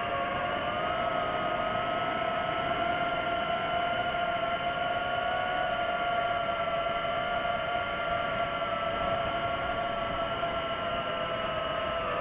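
DJI FPV drone's motors and propellers whining steadily in flight, the pitch drifting slightly with throttle.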